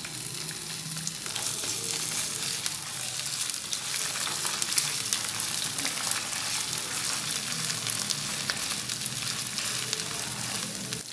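Ginger-garlic paste and browned onions sizzling in hot ghee in a frying pan, a steady crackle full of small pops, while a spatula stirs them around the pan.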